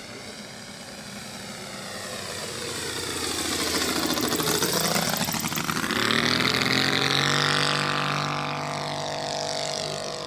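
Saito FG-84R3 three-cylinder radial petrol engine of a 1/3-scale Piper J-3 Cub RC model making a low pass. It runs steadily, grows louder as the plane comes in, is loudest about six to seven seconds in, then fades a little as it climbs away.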